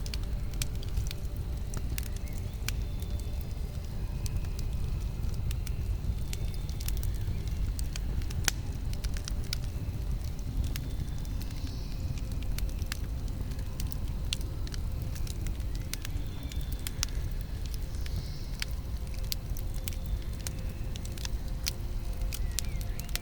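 Campfire burning: wood crackling and popping in sharp, irregular snaps over a steady low rumble of the flames.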